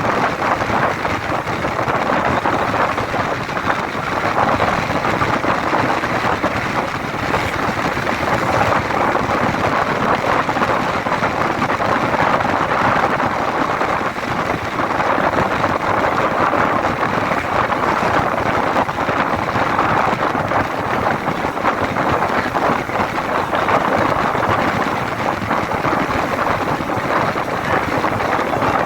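Steady rushing noise of a moving vehicle, with wind on the microphone.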